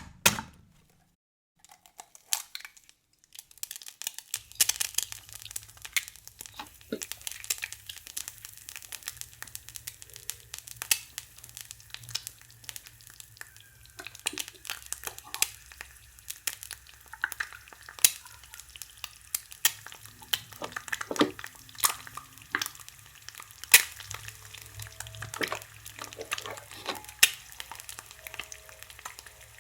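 A toy cooking pan's electronic frying sound effect sizzling steadily from about four seconds in, with many light clicks and taps of plastic utensils stirring on the pan.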